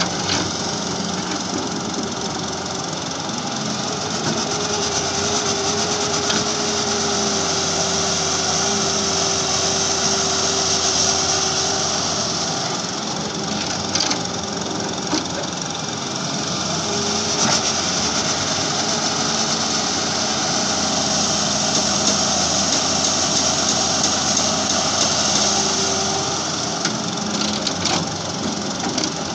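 Halla 130W wheeled excavator's diesel engine running steadily under working load as it digs and dumps soil, with a steady tone that rises out of it for several seconds at a time and a few sharp knocks.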